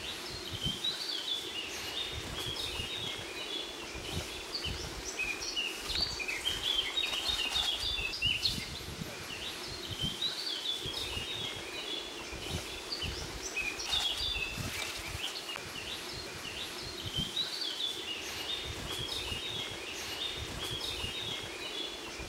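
Forest birds singing, with many short overlapping chirps throughout, over a steady background hiss and frequent low bumps on the microphone.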